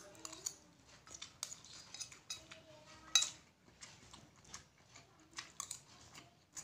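A person eating fried instant noodles and rice close to the microphone: irregular wet chewing and mouth clicks, with a utensil clinking against the plate, the sharpest click about three seconds in.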